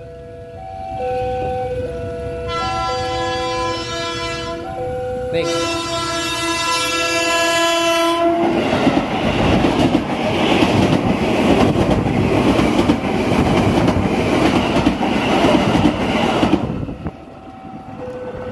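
A level-crossing alarm rings in two alternating notes. A KRL Commuterline electric train sounds two long horn blasts, then rushes past at very close range with loud wheel and rail noise for about eight seconds. As it clears, the crossing alarm is heard again.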